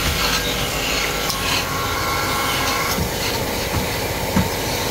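Belt-driven wood-turning lathe running with a hand tool scraping the spinning wood, over a steady machine hum; a low thump near the end.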